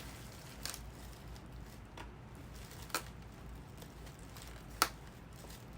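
A few light clicks and taps, four in all with the loudest near the end, from small items being handled and set into a gift basket.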